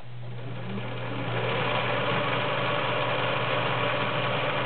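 Kenmore model 1781 sewing machine running, sewing a zigzag stitch through fabric. The motor starts at the beginning, speeds up over the first second and a half, then runs steadily.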